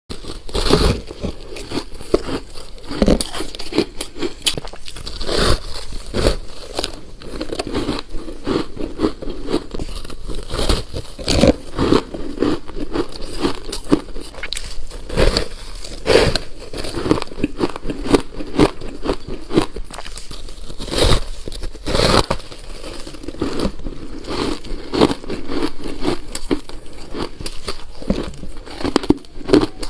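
Biting and chewing a block of refrozen shaved ice: a steady run of crunches with many sharp, irregular crackles.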